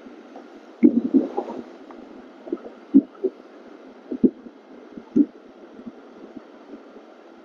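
Irregular dull thumps of wind buffeting and rubbing on a body-worn wireless microphone while riding a motorcycle, about eight of them, over steady muffled wind and road noise.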